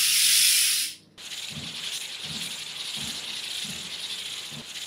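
Breath blown hard through a drinking-straw spinner, a loud even hiss that cuts off abruptly about a second in. A quieter steady rattly hiss follows, with soft low pulses about one and a half times a second.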